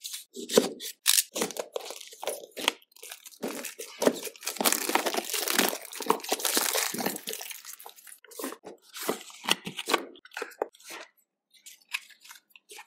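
Packaging of a smartwatch retail box being cut open, torn and unfolded by hand: a run of sharp clicks and crinkling. There is a dense stretch of rustling and tearing in the middle, and a few light paper clicks near the end as the folded inner flaps are opened.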